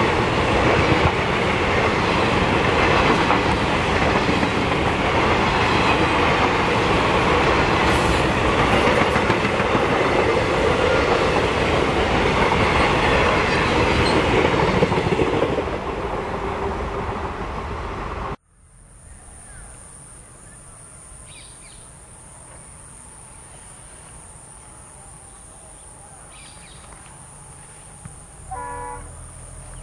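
Passenger coaches rushing past at speed, wheels clattering over the rail joints, the noise easing as the last coach goes by. About two thirds of the way through it cuts off abruptly to a steady high insect drone with a few faint chirps, and a short pitched call near the end.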